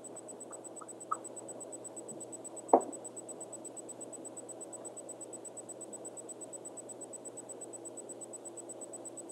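Small handling clicks of fly-tying work at a vise, with one sharp tap about three seconds in, over a steady background hum and faint high whine.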